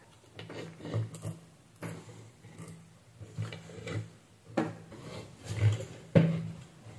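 Scattered light knocks and clicks from handling a switch-mode power supply's circuit board and its multimeter probes, at irregular moments, over a faint low hum.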